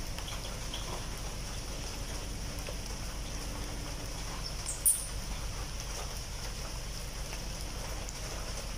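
Light rain falling steadily on wet pavement, with one short high squeak about halfway through.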